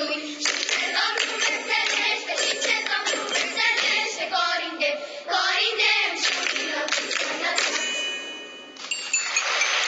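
Children's choir singing a lively folk-style song with rhythmic hand-clapping; the song ends about eight seconds in and audience applause starts a second later.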